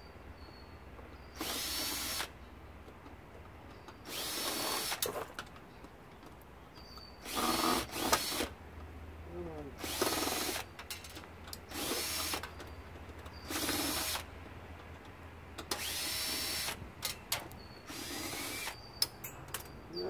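Power drill-driver backing screws out of a stainless steel dishwasher's panels, in about eight short runs of under a second each, every two to three seconds.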